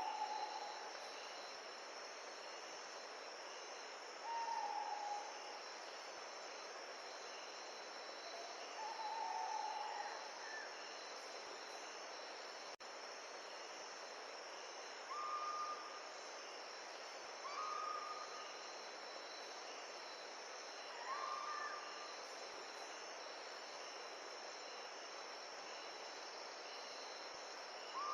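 A steady hiss with a high, even insect drone, and a bird's short whistled note repeated about seven times, every few seconds; the later notes are a little higher.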